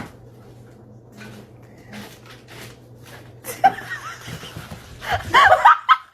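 Faint steady hum for the first few seconds, then loud bursts of laughter-like vocal sounds that break off suddenly near the end.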